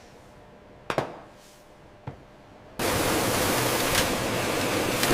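Two faint clicks, then a loud, even hiss of noise cuts in suddenly about three seconds in and holds steady, with light ticks in it.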